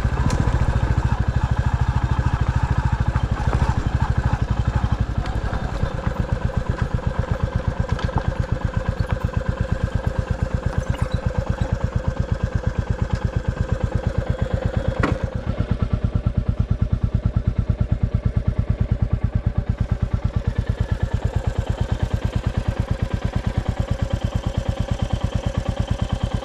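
A vehicle engine idling steadily with an even beat, with one sharp click about halfway through.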